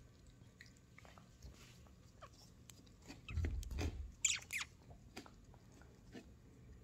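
Savannah cat eating from a plastic bowl: small irregular chewing and crunching clicks, with a louder cluster of knocks and clicks a little past the middle.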